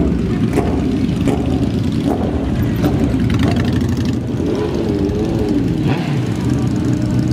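Several motorcycles, cruisers and sport bikes, rolling slowly past in a line with their engines running and occasionally revving.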